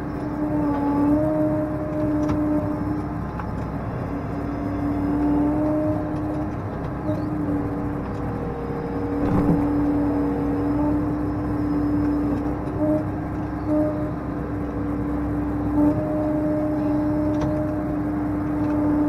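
Case IH tractor's diesel engine running steadily, heard from inside the cab: a steady drone with a higher whine that comes and goes.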